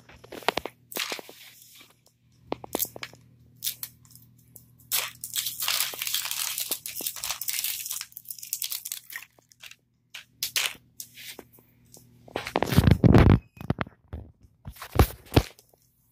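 Plastic Mini Brands surprise ball being handled and picked open by hand: crinkling and tearing of its wrapping and stickers with sharp plastic clicks, a dense crackling stretch in the middle, and a few louder knocks near the end.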